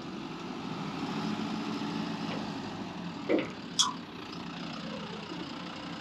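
An engine idling steadily, with two brief clicks about half a second apart a little past the midpoint.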